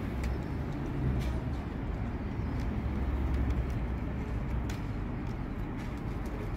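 Steady low rumble of city background noise, with a few faint clicks.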